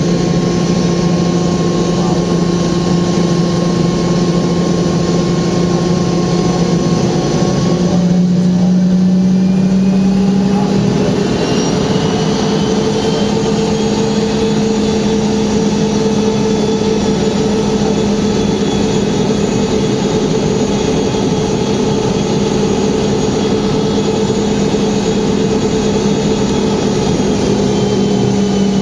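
Boeing 717's Rolls-Royce BR715 turbofan engines running with a steady whine. About 8 s in the tone steps up, and from about 10 s a higher whine rises for a few seconds, then holds steady.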